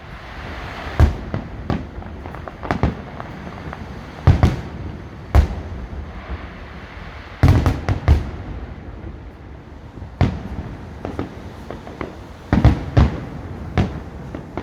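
Fireworks salute bursting overhead: loud sharp bangs at irregular intervals, a few coming in quick clusters, over a continuous rumble of further bursts.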